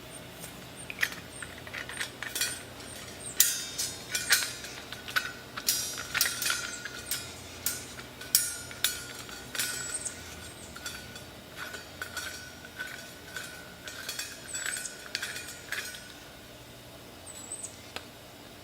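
Metal false-bottom parts and fittings of a mash tun being handled and pushed together by hand: irregular sharp clicks and clinks that thin out near the end.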